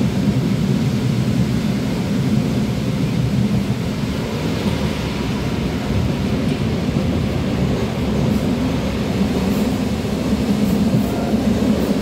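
ALn 668 diesel railcar heard from inside while running at speed: a steady, loud rumble of the diesel engine and the wheels on the rails.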